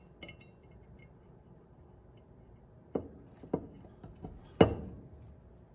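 Balance shaft bearing shells being handled and pressed into the aluminium housing of a Kia/Hyundai 2.4 balance shaft oil pump drive assembly: a faint metallic clink at the start, then four short knocks, the last and loudest a little past four and a half seconds in.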